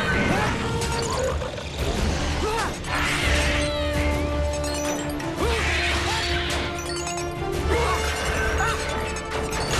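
Animated action soundtrack: a dramatic music score with held notes over a low pulse, mixed with mechanical whirs and chirps, metal clanks and crashes from a scuffle with a small robot.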